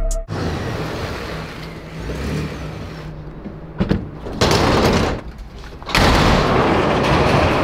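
A car engine running at low revs with road noise while driving in traffic. About six seconds in, a loud steady rush starts abruptly: a shop's roll-up door being raised.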